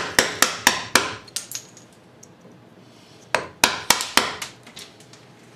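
Mallet striking a half-inch chisel in quick blows, about four a second, chopping waste out of a V-groove cut into a wooden vise chop. Two runs of blows with a pause of about two seconds between them.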